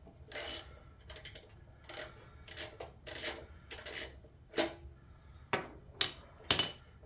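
Metal hand tools clinking and clicking: about a dozen short, sharp clicks and scrapes, unevenly spaced, from a socket wrench with a spark plug adapter being fitted and worked on a lawn mower engine's spark plug.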